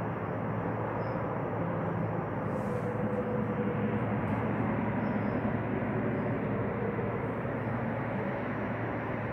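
Steady outdoor background rumble with a low hum, growing slightly louder in the middle.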